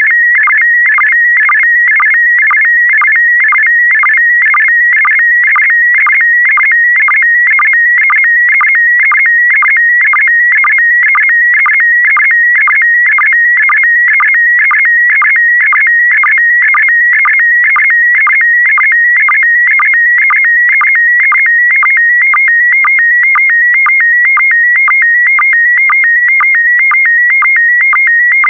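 Slow-scan TV (SSTV) image transmission in PD120 mode: a loud, unbroken warbling tone around 2 kHz, its pitch stepping with the picture's brightness along each line, broken by short, lower sync blips at a regular beat. Near the end the warble narrows to a steadier, higher tone as the image content changes.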